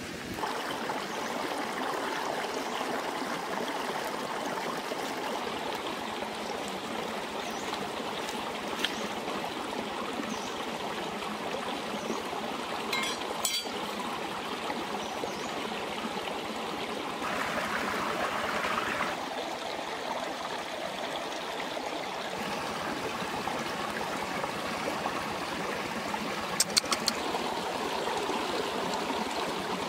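Running water from a stream, steady, with a few short clicks near the end.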